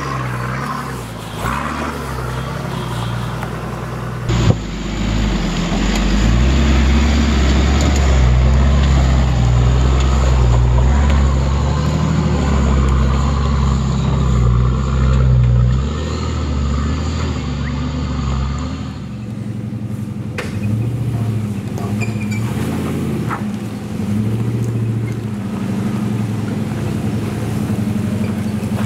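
4x4 engines running under load as they crawl over rock steps, revs rising and falling. There is a sharp knock about four seconds in.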